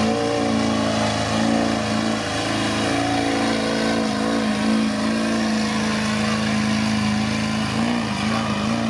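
Competition pulling vehicle's engine held at high rpm under full load during a pull, a loud steady note that wavers a few times near the end.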